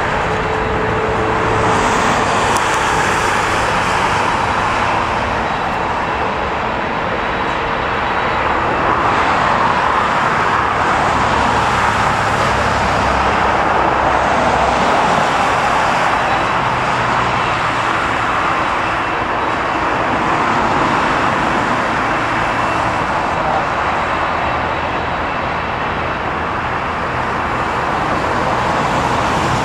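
Twin-engined jet airliner on its takeoff roll at full power, heard from across the airfield: a steady, loud rushing noise that swells gently now and then.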